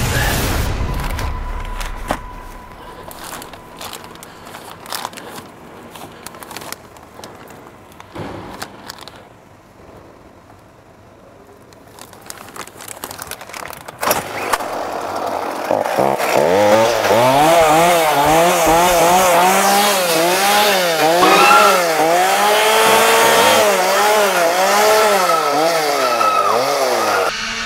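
A two-stroke chainsaw starts about halfway through and is then revved up and down over and over, about once a second. It cuts off suddenly near the end. Before it starts there are only faint scattered clicks and rustling.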